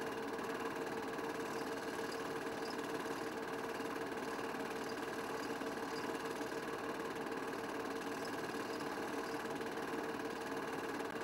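Film projector running: a steady mechanical whirr with a constant hum whose pitch never changes, and faint ticks now and then.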